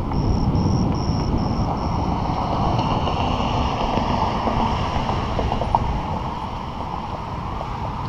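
Wind buffeting the microphone and tyre rumble from a bicycle rolling along a concrete sidewalk, with a light high ticking at a few per second for the first couple of seconds.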